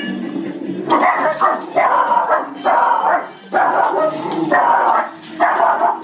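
Dachshunds barking repeatedly at a stuffed toy dog, about seven loud barks in a row beginning about a second in.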